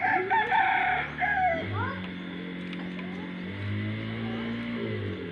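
A loud animal call for about the first second and a half, ending in a rising note, followed by the steady low drone of a motor vehicle engine running for the rest.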